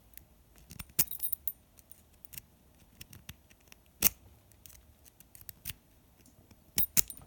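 Wave rake being raked and zipped through the keyway of a Master Lock padlock: irregular metallic clicks and rattles of the pick on the pin tumblers, with louder clicks about a second in, about four seconds in and twice near the end. The pins are not setting and the lock stays shut.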